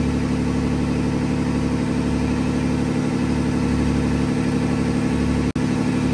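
Fishing boat's engine running steadily, an even drone that cuts out for an instant about five and a half seconds in.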